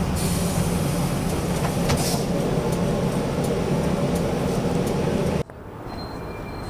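Steady hum and rattle inside a trolleybus standing with its doors open, with a few faint knocks as passengers step off. About five and a half seconds in it cuts off abruptly to quieter street background.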